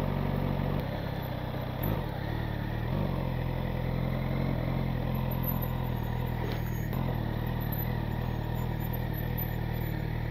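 Suzuki GSX-S1000's inline-four engine running steadily at low revs as the motorcycle moves slowly.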